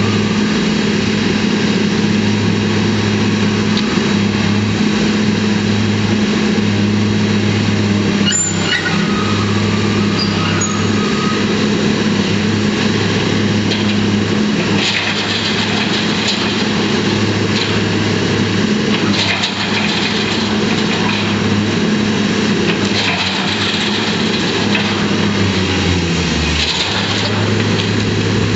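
Diesel engine of a demolition excavator running steadily under load, its note sagging briefly near the end, with intermittent scraping and crunching of metal and rubble and a brief high squeal about eight seconds in.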